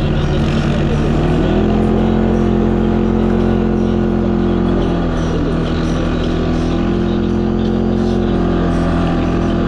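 A CF Moto 500's single-cylinder engine running as it is ridden. The engine speed picks up about a second and a half in, eases off around the middle, then climbs again.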